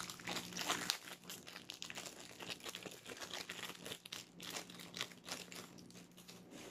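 Clear plastic packaging crinkling in many short, irregular crackles as it is pulled open and handled, louder in about the first second.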